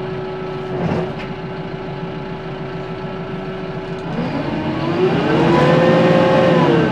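Kubota M6-141 tractor's four-cylinder diesel engine idling steadily, with a single knock about a second in; about four seconds in it is throttled up and held at higher revs, the engine speed brought up for running the baler off the PTO, then drops back near the end.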